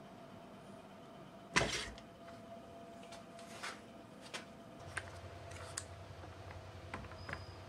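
A loud sharp knock about a second and a half in, then several lighter clicks and taps as a DeWalt trigger bar clamp is handled and squeezed onto 2x4 boards, over a faint steady hum.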